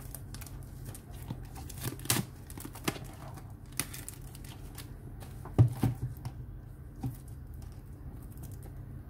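Clear plastic shrink wrap being cut with a pocket knife and peeled off a cardboard box, crinkling and tearing in short spells. A thump a little past halfway is the loudest moment.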